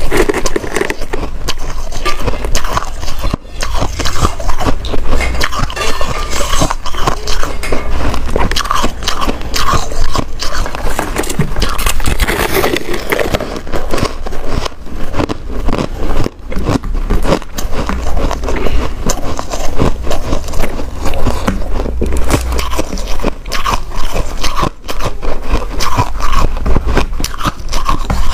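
Close-miked biting and chewing of a slab of packed shaved ice: a dense stream of crisp, crackly crunches.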